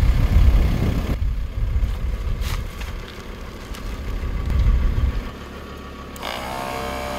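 Ford Ranger pickup's engine and tyres on a dirt track, loud for about the first second and then cut off abruptly. A quieter low engine rumble follows, and about six seconds in a steady humming whine starts.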